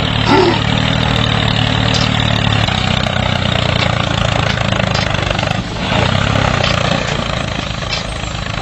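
Tractor engine running steadily, a low hum with a rough noise above it, as the tractor works its way out of a muddy rut.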